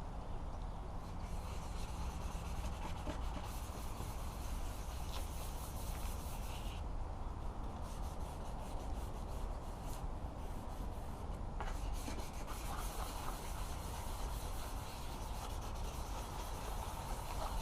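Sandpaper (300–400 grit) wet-sanding a plastic headlight lens by hand in circular strokes, taking off the oxidation. It is a continuous rubbing scrape whose hiss brightens and dulls as the strokes change.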